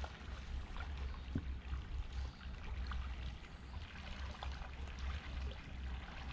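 Kayak paddling on calm water: the paddle dipping in with small splashes and trickling drips, over a low steady rumble.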